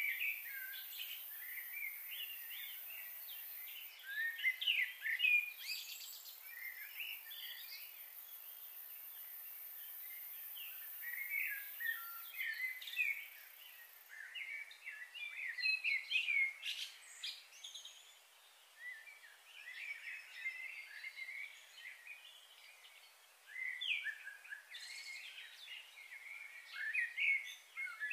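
Several birds chirping and twittering in short, scattered bursts, with a faint steady high hiss that stops about halfway through.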